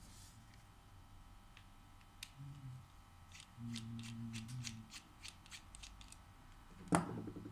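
Faint handling noises of phone repair work: a run of small clicks and ticks in the middle, and one sharper click near the end.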